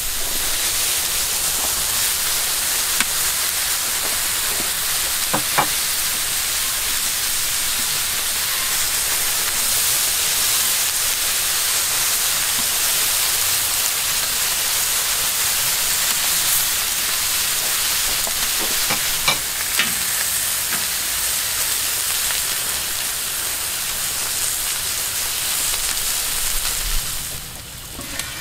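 Food sizzling steadily as it fries in a hot pan, with a few crackles and spatters along the way. The sizzle drops off sharply near the end.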